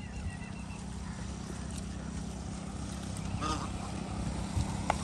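Steady low engine hum, as of a vehicle idling, with a quick row of short high chirps in the first second.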